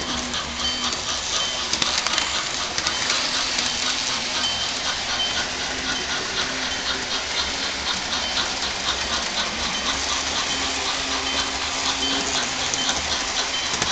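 Model train running on its track: a steady, dense rolling noise from the wheels and motor with a rapid, even ticking rhythm.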